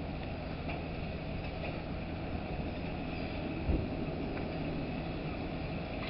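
Dockside crane's engine and hoist running steadily with a low hum while it lifts a load of timber from a ship's hold, with a single low thump about halfway through.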